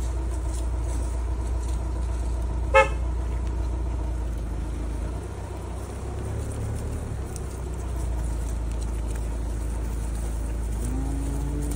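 Car engine running with a steady low rumble, and one short horn toot about three seconds in.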